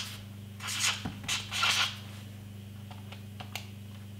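Pen scratching on paper in a few quick strokes as figures are written, then a few faint clicks as calculator keys are pressed, over a steady low electrical hum.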